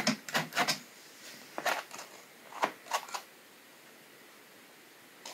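Hand-held squeeze-handle flour sifter being worked, flour sifting through its mesh: a quick run of short clicking strokes, then a few single strokes, then quiet.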